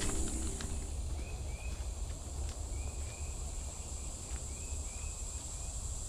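Woodland ambience: a steady, high-pitched insect drone with a bird repeating short chirps, often two at a time, over a low rumble.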